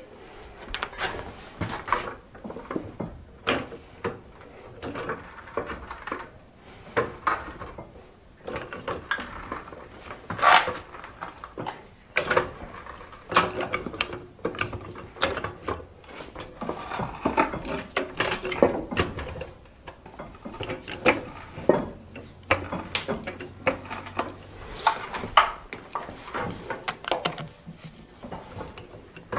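Socket ratchet clicking in short irregular runs, with metal clinks, as bolts are worked off the bevel gear of a Caterpillar D4 bulldozer's steering clutch assembly.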